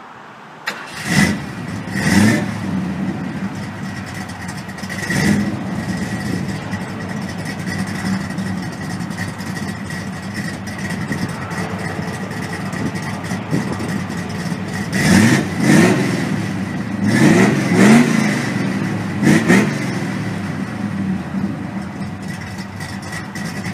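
An older Ford V8 engine idling, blipped up in short revs about one, two and five seconds in, then in a quick series of four or five revs between about fifteen and twenty seconds.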